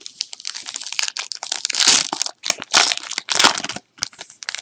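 A plastic trading-card pack wrapper crinkling as it is torn open and crumpled. The crackling is loudest in the middle and dies to a few scattered crinkles near the end.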